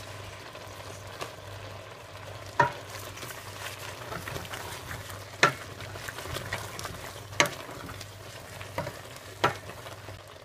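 A spoon stirring spinach into a simmering tomato vegetable filling in a stainless steel pot, with a faint steady sizzle and a few sharp knocks of the spoon against the pot.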